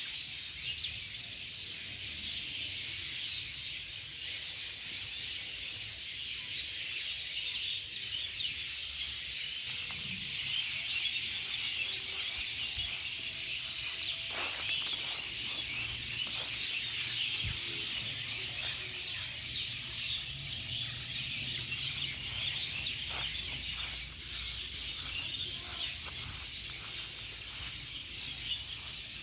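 Dense chorus of many small birds chirping continuously, over a faint low rumble.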